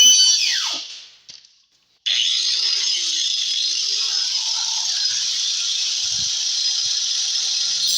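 Angle grinder winding down with a falling whine after being switched off, then, after about a second of near silence, starting again abruptly about two seconds in and running steadily with a high-pitched hiss as it cuts into the MDF speaker box.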